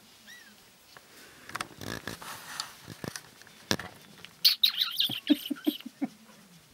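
Young kittens, about two and a half weeks old, giving high-pitched squeaky mews: one faint squeak near the start, then several in quick succession a little past the middle. Rustling and a few sharp clicks come between them.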